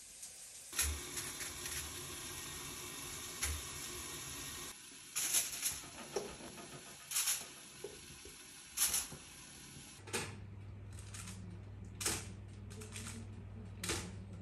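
Kitchen handling sounds: scattered sharp clicks and knocks of metal pans, foil and utensils. About ten seconds in, a steady low hum starts, with metal tongs clicking against the oven trays and racks.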